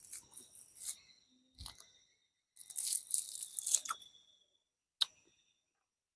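Crackly tearing and crunching of fruit being peeled open and bitten close to the microphone. The loudest stretch comes about three seconds in, followed by a single sharp click about five seconds in.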